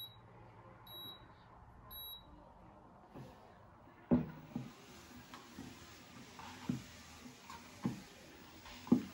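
Urevo U1 walking pad starting up: three short high beeps about a second apart, then its belt motor running with a quiet steady hiss, and soft footsteps thudding on the moving belt from about four seconds in.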